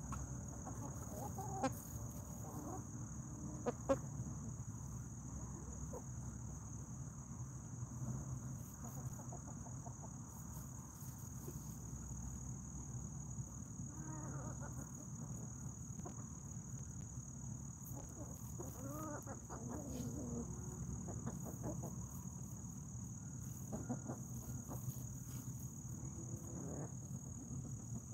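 Foraging hens clucking softly now and then, over a steady high insect trill. Two sharp clicks in the first four seconds stand out as the loudest moments.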